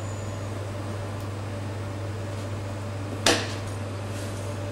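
A single sharp metal clank about three seconds in, a pan or utensil knocked against the stainless-steel stove, over a steady low hum.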